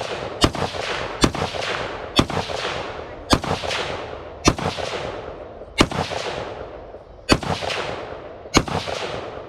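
Firearm gunshots, about eight single shots roughly a second apart, the gaps growing slightly longer, each followed by a long fading echo.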